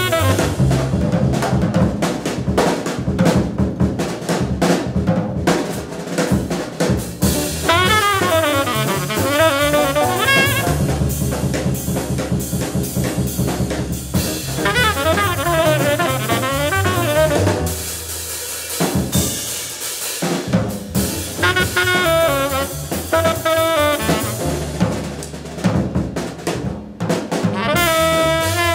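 Small-group hard-bop jazz recording with the drum kit to the fore: snare, bass drum and cymbal breaks, traded several times with short, fast melodic runs from the band.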